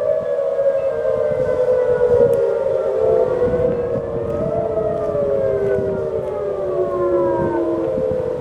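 Outdoor warning sirens sounding together: a Federal Signal Thunderbolt and Whelen 2810s imitating its tone. Several tones overlap, each slowly rising and falling in pitch.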